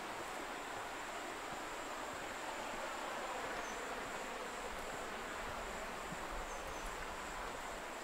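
Steady rushing of a mountain valley stream, with a thin, high-pitched whine held above it.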